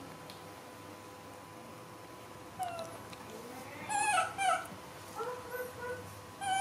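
Baby macaque giving a run of short, high-pitched cries, starting about two and a half seconds in. The cries come a few to a second, each bending down in pitch, and are loudest around four seconds in.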